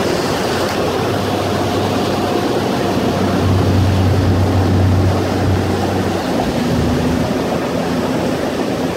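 Speedboat running at speed: a steady engine drone under a noisy rush, its low hum swelling for a couple of seconds midway.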